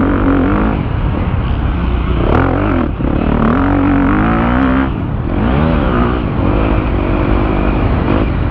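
A KTM 250 motocross bike's engine heard from the rider's own camera, revving up and down as the throttle is worked along the track, with brief drops in revs about three and five seconds in.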